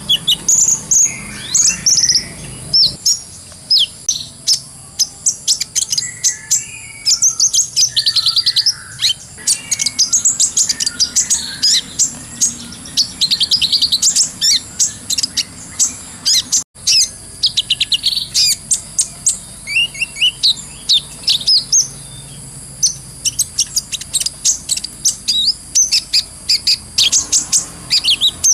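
Kolibri ninja (Van Hasselt's sunbird) singing a fast, continuous run of high chirps, trills and twitters, the busy 'ngobra' chatter used as filler song for training other birds. Trickling water runs steadily underneath.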